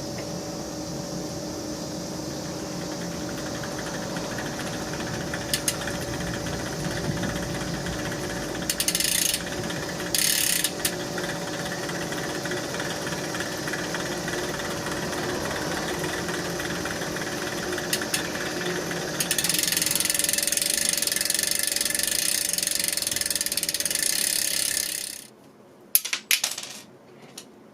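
Road bike chain and drivetrain running with steady mechanical whirring and rattling, the abnormal noise that a counterfeit missing link in the chain makes. It grows louder and harsher about two-thirds of the way in, stops abruptly near the end, and a few sharp clicks follow.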